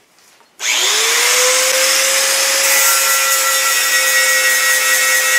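Handheld grinder spinning up about half a second in, its whine rising then holding steady, as it scuffs the paint off the steel fuel-tank surface around the pump hole. This roughens the metal so the sealant will stick.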